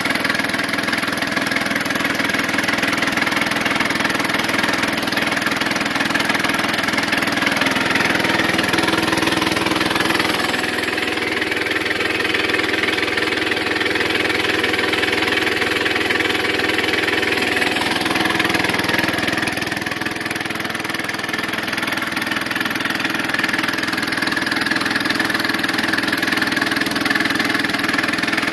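Kohler K-series single-cylinder engine running steadily on propane, after its mixture was leaned out, and driving the belt-driven Ingersoll Rand air compressor pump as it builds tank pressure. The tone shifts for several seconds in the middle, then settles back.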